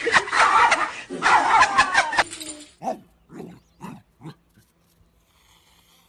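A person laughing loudly for about two seconds, then a small dog giving four short barks in quick succession, about two a second.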